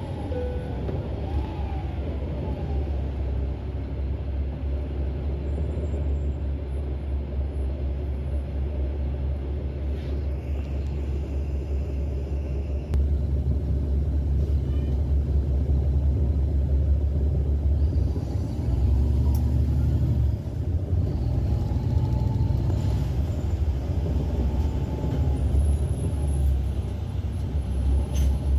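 Inside the cabin of a 2008 NABI 40-SFW transit bus under way: its Caterpillar C9 diesel and road noise make a steady low rumble, which gets louder about halfway through.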